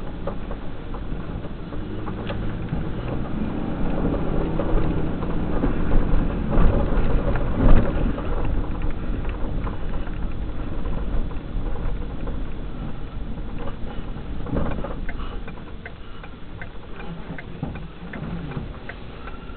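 Inside a slow-moving truck's cab, heard through a dashcam's microphone: the engine running and tyres rolling over pavement, with a sharp knock about eight seconds in. In the last few seconds a regular ticking starts, about two ticks a second.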